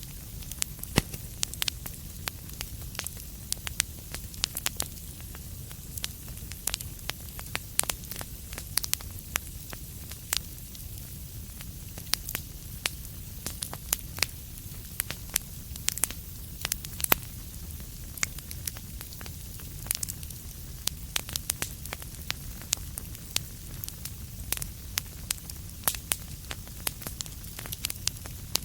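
Wood fire in a fireplace crackling: many irregular sharp pops and snaps over a steady low rumble of burning.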